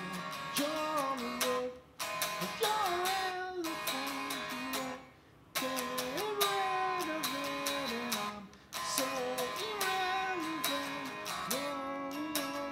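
Electric guitar, a Stratocaster-style guitar through a small Fender combo amp, playing an instrumental passage: a melody of bent and sliding notes over picked chords. The playing breaks off briefly three times, longest about five seconds in.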